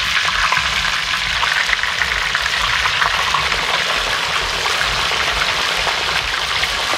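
Tucunaré (peacock bass) frying in hot oil in a plow-disc pan: a steady sizzle with dense little crackles.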